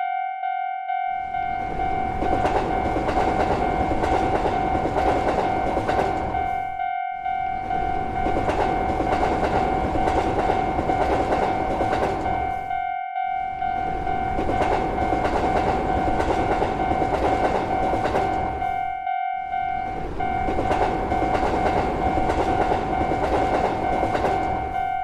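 A railroad crossing warning signal rings as one steady tone, over the rumble and clatter of a passing train. The train noise starts about a second in and breaks off for an instant roughly every six seconds, as if the same stretch is being looped.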